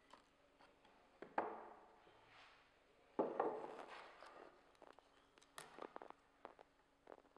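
Solid wood pieces handled on a workbench: two sharp wooden knocks, each dying away over about a second, then a scatter of light taps and clicks.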